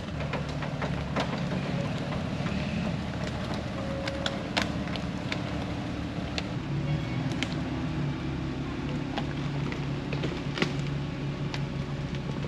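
Off-road vehicle engine running steadily, with scattered sharp clicks and knocks throughout.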